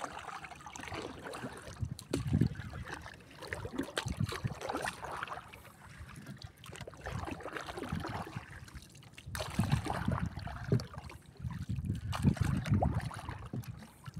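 Sea water lapping and sloshing against the hull of a small outrigger boat, in uneven surges.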